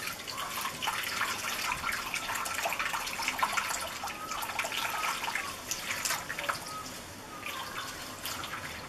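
Water trickling and dripping over the rim of a brim-full plastic tub into the tray below, displaced as a foam block is pushed under, with a steady run of small splashes and drips.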